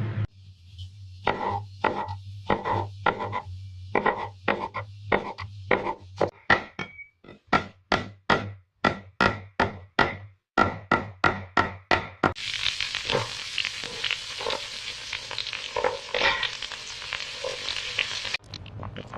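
A knife chopping on a cutting board: a run of sharp knocks, about two a second and then quicker. About twelve seconds in it gives way to a steady crackling sizzle of fish frying in a pan, which cuts off suddenly near the end.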